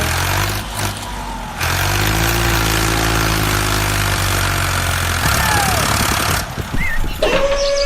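A heavy vehicle engine running steadily with a rough, rattling noise over it. In the last moment a siren starts, its tone rising and then holding one steady pitch.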